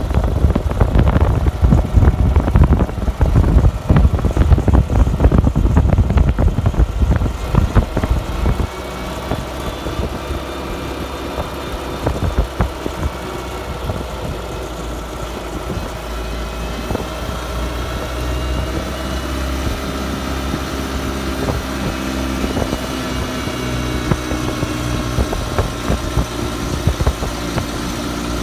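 The small four-cylinder engine of a vintage Morris Minor Semi-Sports open tourer running while driving along a lane. For the first eight seconds or so heavy buffeting rumbles over it. After that the engine note is steadier, its pitch shifting and climbing gently later on.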